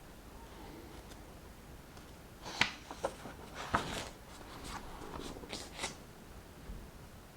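A paper book page being turned: a few crisp crackles and rustles of paper over about three seconds, the first the loudest.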